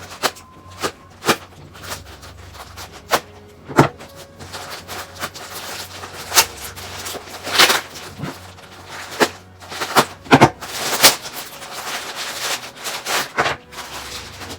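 A mailing pouch being opened and handled by hand: irregular crinkling and rustling of packaging with sharp snaps and crackles, the loudest of them near the middle and about two thirds of the way through.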